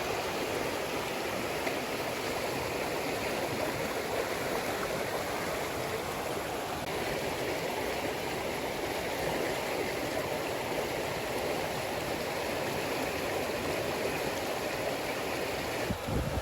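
Steady rush of flowing stream water. Wind buffets the microphone near the end.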